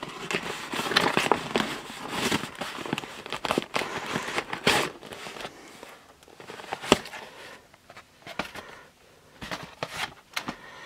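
Cardboard mailer being torn and pulled open by hand: dense scraping and crinkling of cardboard for the first few seconds, then scattered rustles and knocks as the box comes out and the mailer is handled, with one sharper knock about seven seconds in.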